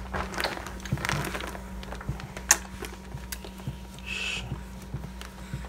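Clothing rustling and soft handling clicks as a baby's long-sleeved shirt is pulled on over his arms, with a short swish of fabric about four seconds in.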